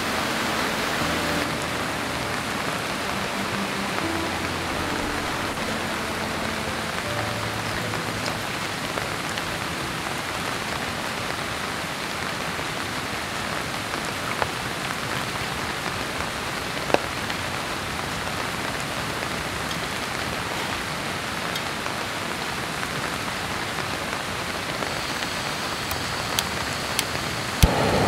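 Steady downpour of heavy rain, an even hiss of falling water, with a few sharp clicks near the middle and end.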